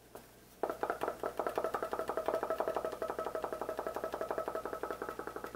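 Tin of Old Bay seasoning being shaken rapidly: a fast, even rattle of about ten strokes a second with a ringing note from the can, starting suddenly about half a second in.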